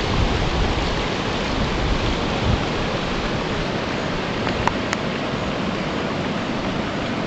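Steady rushing hiss of flowing floodwater, with low wind rumble on the microphone in the first few seconds. Two faint ticks a little past the middle.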